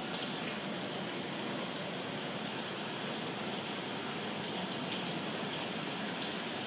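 Steady hiss of rain falling, with a few faint light taps.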